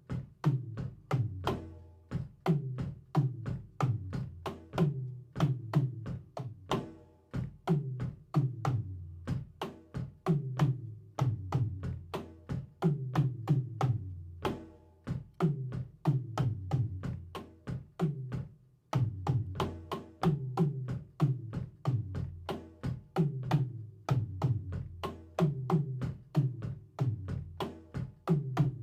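Drum kit played by a beginner in a steady repeating groove: dense strikes, with deep drum hits that recur about once a second.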